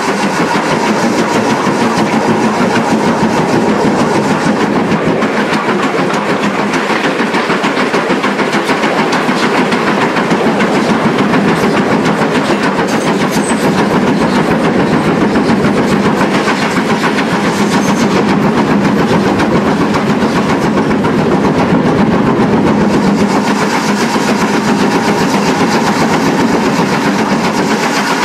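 GWR 4575-class 'Small Prairie' 2-6-2T steam locomotive running under steam, heard loud and close from beside its cab: steam exhaust, running gear and wheels on the rails.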